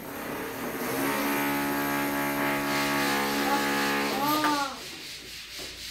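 Electric drill running at a steady pitch for about four seconds, then stopping.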